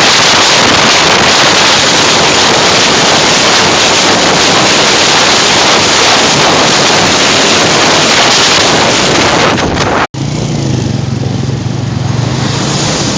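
Heavy wind noise on the microphone of a moving Honda CG 125 motorcycle, with no clear engine note. After a brief drop-out about ten seconds in, the CG 125's single-cylinder four-stroke engine is heard running steadily through its modified older-style silencer, starting to rise in pitch near the end.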